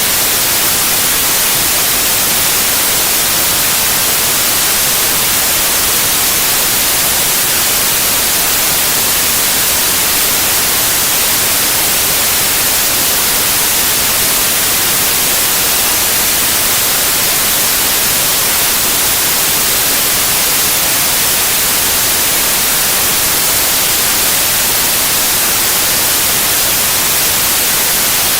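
Steady, loud white noise: an even, unchanging hiss, brightest in the treble.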